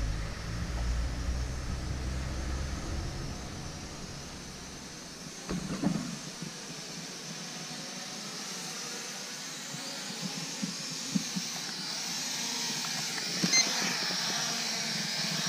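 Wind rumble on the microphone for the first few seconds. After that, the high, wavering whine of the Asbww GPS quadcopter's propellers, growing stronger in the second half, with a short beep near the end.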